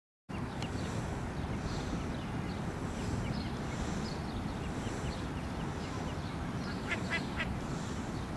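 Mallard ducklings peeping in many short, high chirps, with a louder run of calls about seven seconds in, over a steady low background noise.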